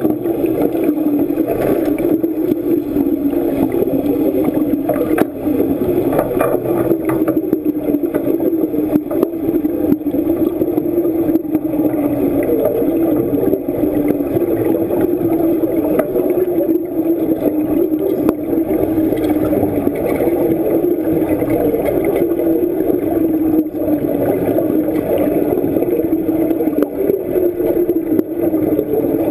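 Underwater wet-welding arc burning steadily, heard from under the water: a continuous wavering drone with faint scattered crackles.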